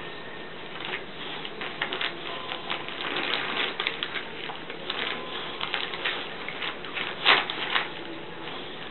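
Wrapping paper rustling, crackling and tearing as a dog rips it off a present with its mouth, in an irregular run of crinkles with a louder burst about seven seconds in.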